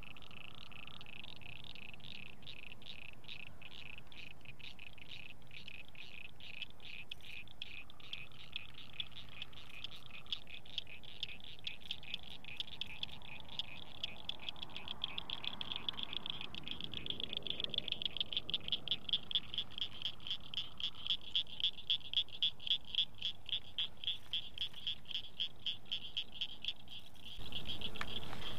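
Frog calling at the pond's edge: a long run of sharp, high clicks that comes faster and louder about halfway through. Near the end a louder rush of noise joins it.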